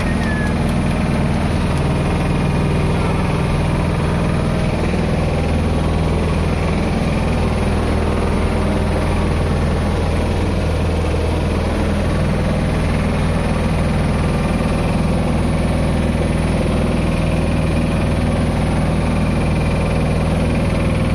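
A small motorboat's engine running steadily under way, a constant low drone with water rushing along the hull.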